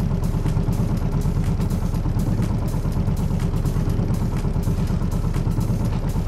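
A sailboat's inboard engine running steadily, with faint regular ticks over a constant low drone.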